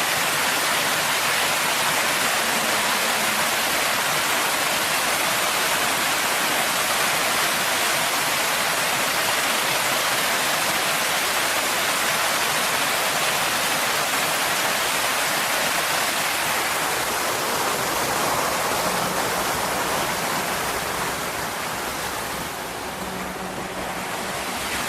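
Water fountain splashing, a steady dense rush of falling water that grows a little quieter near the end.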